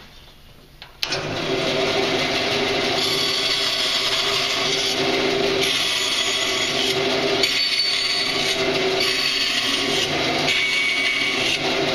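Bandsaw starting its run about a second in, then cutting a wooden board, with a steady machine tone under it. The high cutting hiss swells and drops away several times as the blade is fed in and backed out in a series of release cuts, which take pressure off the blade.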